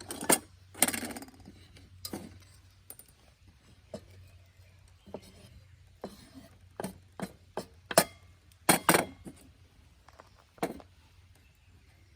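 Irregular knocks and clatters of cooking gear and utensils being handled while food is prepared: about a dozen sharp taps, with a short scraping rustle about a second in.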